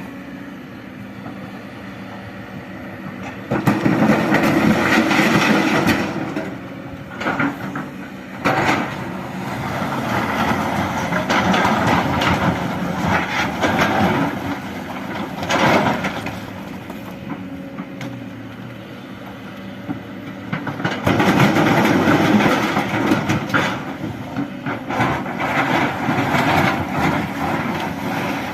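Excavator at work: its diesel engine runs steadily and swells louder for several seconds at a time under load, with clanking and sharp knocks from the machine.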